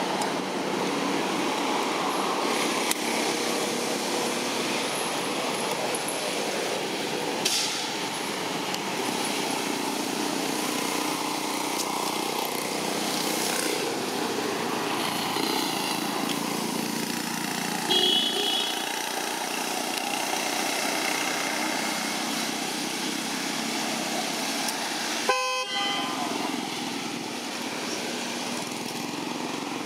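Steady outdoor background noise, with a short horn toot about 25 seconds in.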